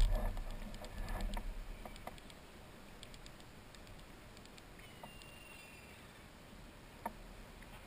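Paddle and water sounds against a kayak hull fade out over the first two seconds. Then come faint scattered clicks and ticks from handling a fishing rod and cranking a spinning reel, with one sharper click near the end.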